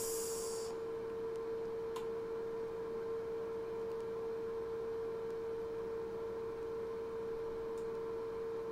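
A steady, unchanging pure tone of middle pitch, with two faint clicks, one about two seconds in and one near the end.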